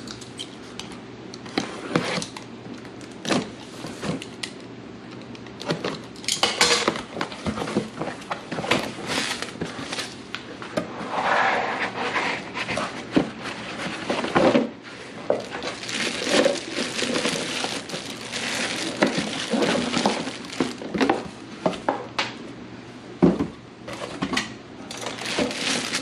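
Cardboard box being opened and a coffee maker unpacked by hand: cardboard flaps and a molded pulp packing insert scraping and rustling, with scattered knocks as pieces are handled, and a plastic bag crinkling near the end.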